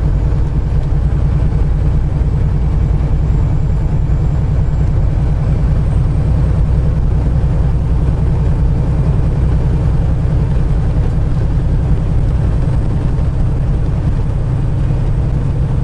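Semi-truck engine and road noise heard inside the cab at steady highway cruise: a loud, even, low drone.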